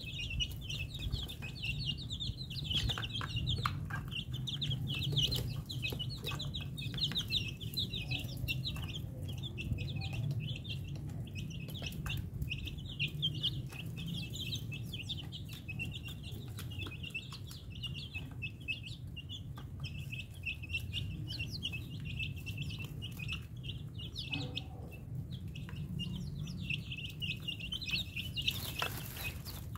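A flock of young chicks peeping without a break, many high chirps overlapping, over a low steady hum.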